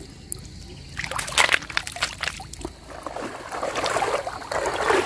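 Sloshing and splashing of shallow pond water as someone wades through it, starting about a second in after a quieter moment with a few faint drips.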